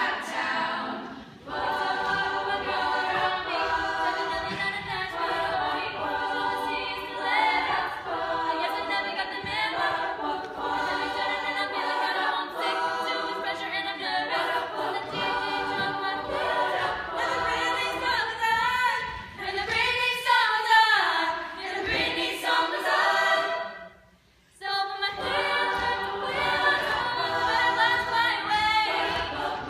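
A choir of mostly young women singing a pop song together, with no instruments standing out. The singing breaks off for a moment near the end, then comes back in.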